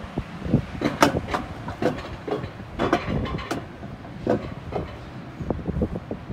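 Wiegand alpine coaster sled running along its steel tube track: a steady rumble from the wheels with irregular clacks and knocks as the sled rattles over the rails.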